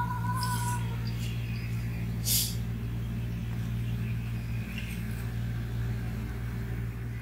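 A steady low mechanical hum, with a held two-note tone that ends about a second in and two short hissing swishes in the first few seconds.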